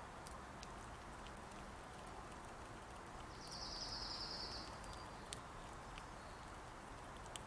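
Faint scattered clicks of a fox squirrel cracking and chewing seeds at close range over a low outdoor background, with a short buzzy bird trill, high-pitched, a little before halfway through.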